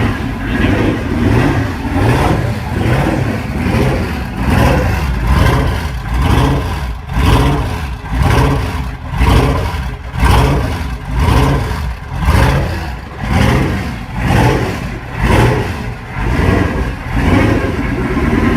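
Twin-turbo 6-litre LQ4 V8 being blipped over and over, revving up and dropping back about once a second. It is running on an early tune with the ignition timing retarded, and the engine sounds average.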